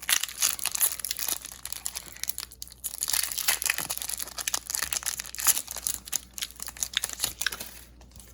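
Foil wrapper of a Pokémon trading-card booster pack crinkling and tearing as it is opened by hand, an irregular crackle that dies away about a second before the end.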